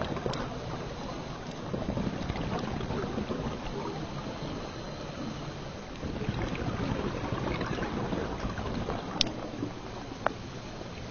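Underwater reef ambience picked up by a diver's camera: a steady rushing noise with scattered faint ticks, and two sharper clicks near the end.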